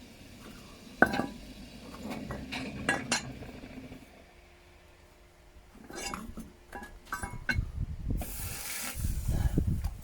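Metal clinking and knocking as hot cast pieces and tools are handled: a sharp knock about a second in, then clusters of small clinks. Near the end comes a short sizzling hiss, water hitting the hot metal.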